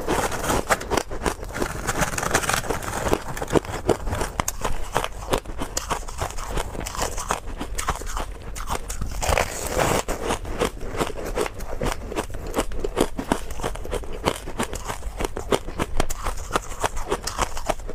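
Someone biting and chewing hard, frozen purple-coloured ice, a dense, irregular run of crunches picked up close by a clip-on microphone.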